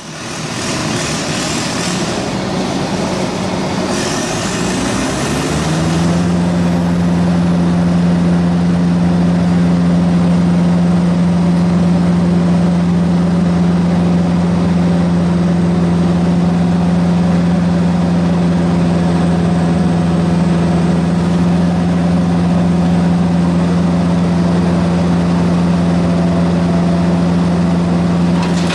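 Diesel engine of a mobile wood chipper running, rising in pitch about four to six seconds in, then running at a steady pitch.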